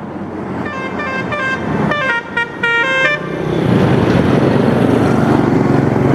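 Indonesian bus's 'telolet basuri' musical air horn playing a quick tune of short notes that jump in pitch, followed by loud vehicle noise with no tune.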